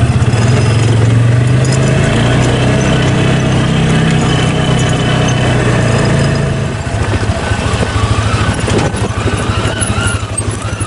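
ATV engine running as the four-wheeler drives along a trail, with a steady engine note that drops to a lower, pulsing run about seven seconds in.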